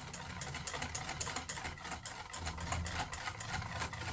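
Hand whisking in a stainless steel bowl: the wire whisk beats a wet mix of curd, sugar and oil, its tines clicking against the metal in a rapid, even rhythm of several strokes a second.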